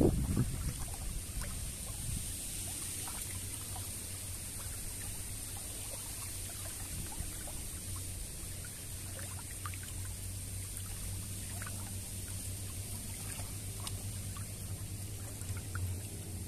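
Shallow river water trickling and splashing around a fisherman wading with a cast net, with small drips and splashes scattered throughout and a louder splash right at the start.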